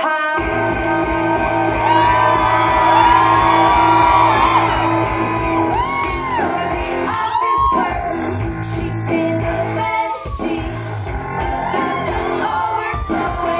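Recorded pop song played over a club sound system: a woman singing over a steady beat that comes in just after the start, with a few short breaks in the beat.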